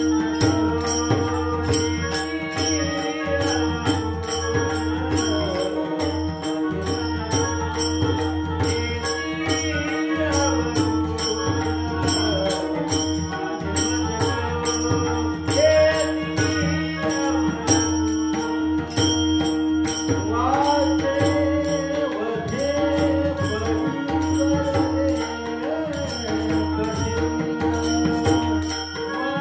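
Indian devotional music: a steady drone under a melodic line with gliding notes, kept in time by regular jingling percussion.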